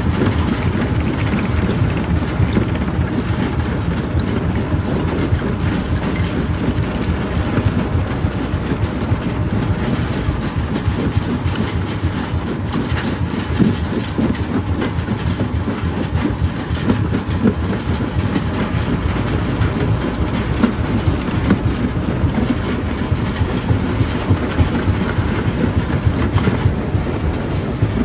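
Jaw crusher crushing stone: a steady, dense clatter of rocks knocking against the steel and against each other as they feed into the jaws, over a low rumble from the machine.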